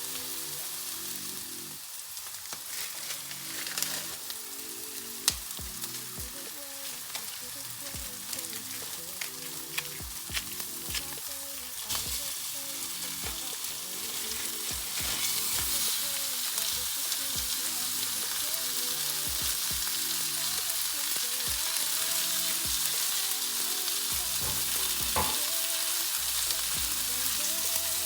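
Food frying in a pan, a steady sizzle that grows louder about halfway through, with a utensil stirring and tapping against the pan in scattered clicks.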